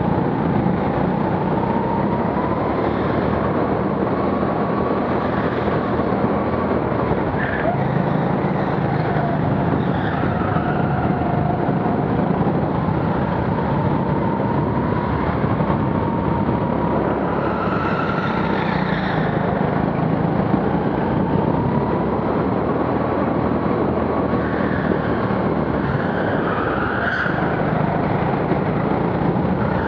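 Go-kart at speed on an indoor track, heard on board: a steady running noise with a whine that rises and falls as the kart speeds up on the straights and slows for the corners.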